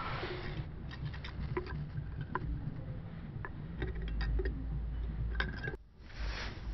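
Pliers giving a nut its final tightening on a stainless steel spoke rod inside an aluminium drink can: scattered light metallic clicks and ticks, with a short break about six seconds in.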